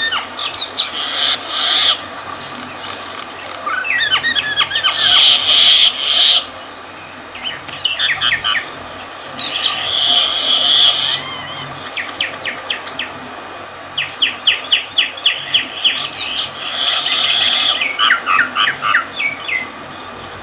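Myna calling in repeated bursts of a second or two, a varied mix of whistles, chirps and harsh notes. About fourteen seconds in it gives a quick, evenly spaced run of clicks.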